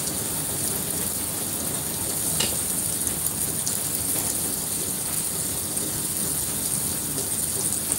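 Steady crackling sizzle of food frying in a pan on the stove.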